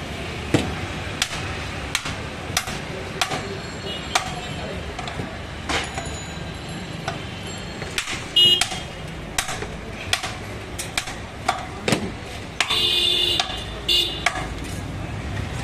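A large butcher's knife chopping beef on a wooden log chopping block: sharp, irregular knocks every half second to a second or so, over steady shop background noise. A short high-pitched tone sounds about thirteen seconds in.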